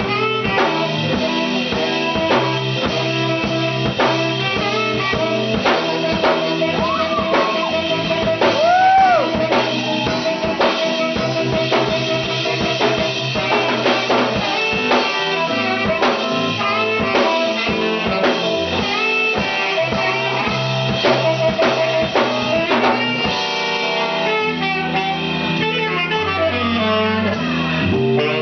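Instrumental blues-jazz band music with guitar, bass and drum kit keeping a steady beat. A long held lead note bends in pitch about nine seconds in, and the arrangement changes about three-quarters of the way through.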